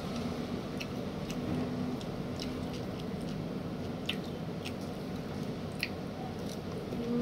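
A person chewing a tortilla wrap, wet mouth sounds with a few short clicks scattered through, over a steady faint hum.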